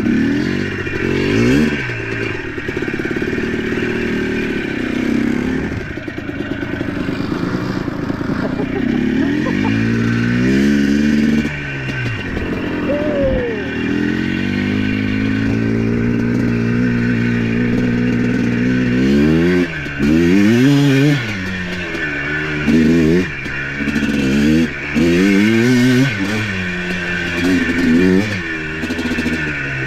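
ATV engine running under way, its pitch rising and falling as the throttle is opened and eased off over and over, with quick surges of revving in the second half.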